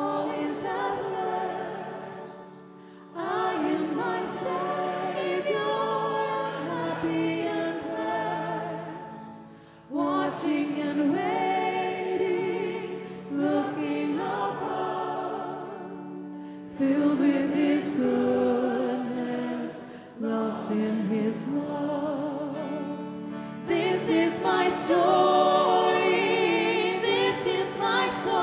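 Hymn sung by a female lead voice and a congregation, with piano, organ and acoustic guitar accompaniment, in long sung phrases with short breaks between them. The singing grows louder in the last few seconds.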